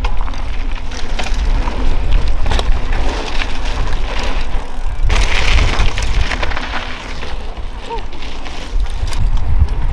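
Wind rumbling on the microphone over a rough hiss with scattered crackles, the hiss swelling about five seconds in.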